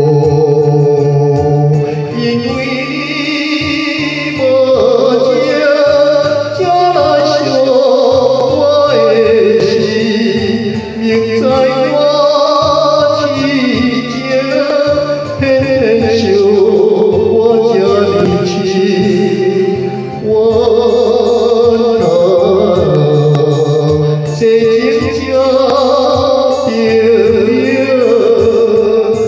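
A Taiwanese Hokkien ballad sung by an elderly man over a karaoke backing track with electronic organ-like accompaniment.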